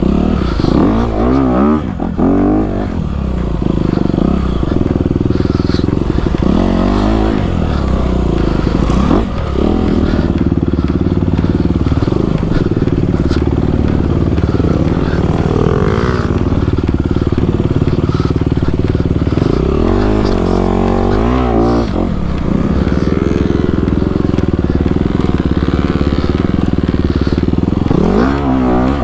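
Dirt bike engine running close by under load, its pitch rising and falling with the throttle as the bike climbs over rough, rocky ground, with several sharp revs: about a second in, around the middle, and near the end.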